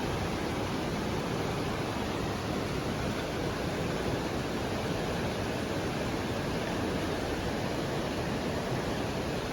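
A steady, even rushing noise with no pops, crackles or other distinct events.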